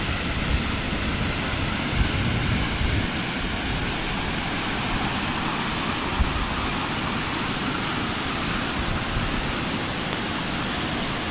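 Beaver Creek in flood, its water rushing steadily, with low buffeting from wind on the microphone.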